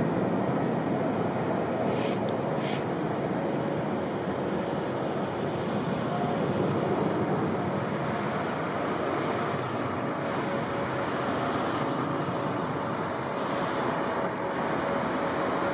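Steady roar of a jet airliner's engines at an airport, with a faint steady whine running through it and two short hisses about two seconds in.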